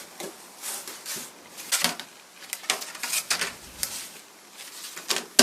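Thin sheets of old wood veneer offcuts being sorted through by hand: a string of irregular dry rustles and light clacks, with a sharper knock near the end.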